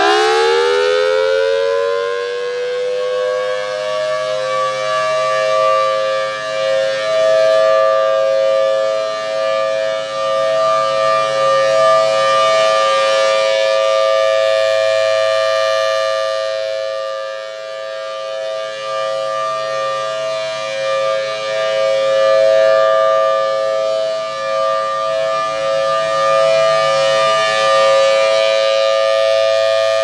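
Federal Signal Thunderbolt 1003 siren finishing its wind-up in the first second, then holding a steady chord-like tone. Its loudness swells and fades as the rotating horn sweeps around.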